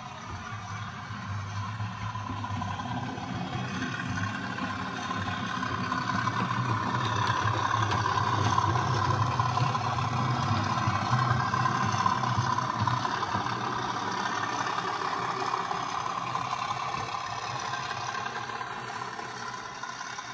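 Model Class 37 diesel locomotive's factory-fitted DCC sound decoder playing a steady diesel engine sound through its small speaker as the model runs. It grows louder as the locomotive comes close, then fades towards the end.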